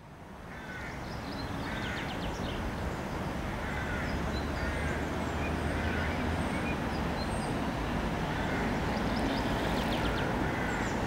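Small birds chirping outdoors, short repeated notes about once a second with fainter high-pitched calls among them, over a steady low rumble; the sound fades in over the first second or two.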